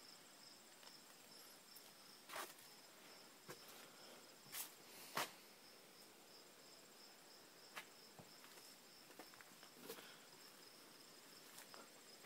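Near silence with a faint, steady, high insect trill, broken by a few sharp clicks and taps, the loudest about five seconds in.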